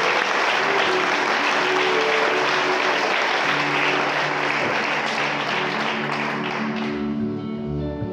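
Applause from the choir and audience, with the band's instruments playing held notes underneath. The clapping fades out about seven seconds in as the music takes over, with low bass notes coming in near the end.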